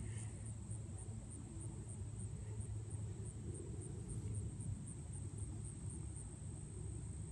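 Outdoor field ambience: a steady low rumble with a faint, high insect trill pulsing about three times a second.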